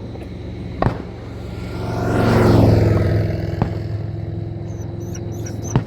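A car passing by close, getting louder to a peak about halfway through and then fading, over a steady engine hum. There is a sharp pop about a second in and another near the end.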